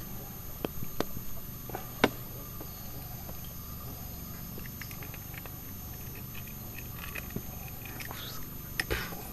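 A few sharp clicks over a faint steady background hum as a freshly caught piranha is held and unhooked by hand.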